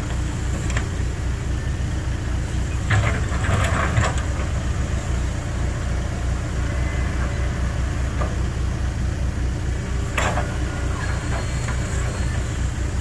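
A heavy engine running steadily with a low, even rumble, and a few brief knocks about three to four seconds in and again near ten seconds.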